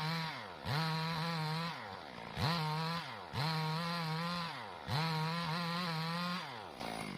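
Two-stroke chainsaw run at high revs while sawing a log into planks, the engine pitch dropping briefly and climbing back about five times as the throttle is eased and reopened. Near the end the throttle is let off and the engine winds down.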